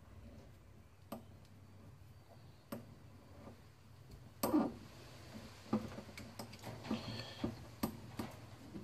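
Scattered light metal clicks and taps, roughly one a second, from an Allen key turning a grub screw in a wire terminal lug to clamp an earth cable, with one louder knock about halfway through.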